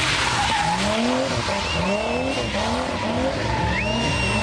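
Two drift cars, one a Nissan Skyline GT-R, sliding in tandem: engines revving in repeated rising surges over a steady hiss of spinning tyres, with a high tyre squeal about halfway through and again near the end.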